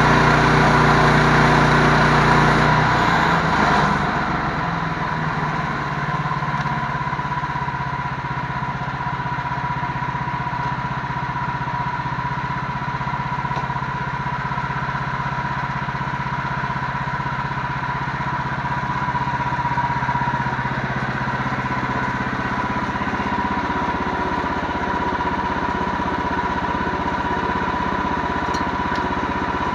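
Engine running, louder for the first few seconds, then easing off about three seconds in to a steady, lower run, with a thin steady whine above it throughout.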